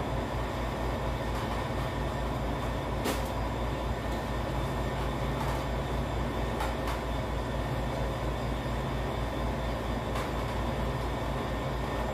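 A steady low mechanical hum and rumble with a faint, even pulsing, and a few soft clicks scattered through it.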